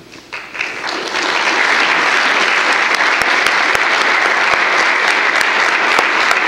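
Audience applauding, starting within the first second, building quickly, then holding steady.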